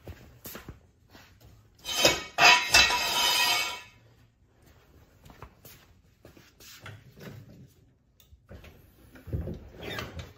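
A loud metallic clatter and rattle lasting about two seconds, with scattered lighter clicks and knocks around it.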